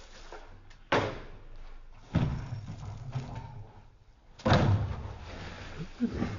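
Three sudden heavy thuds, about a second in, a little after two seconds and midway through, each trailing off in a low rumble.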